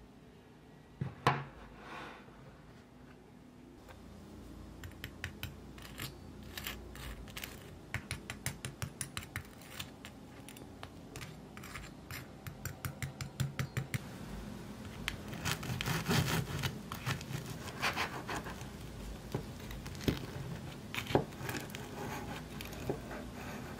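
Knife and fork cutting through a crisp-edged waffle on a wooden cutting board: light clicks of cutlery, then the knife scraping and sawing through the crust and against the board. There is a sharp knock about a second in, and a few more near the end.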